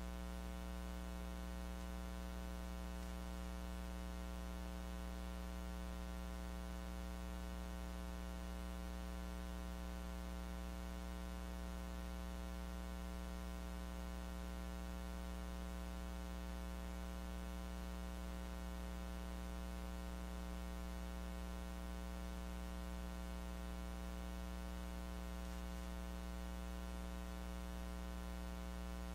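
Steady electrical mains hum with a buzzy series of overtones and a constant hiss, unchanging throughout: the audio track carries no sound from the room, only electrical interference.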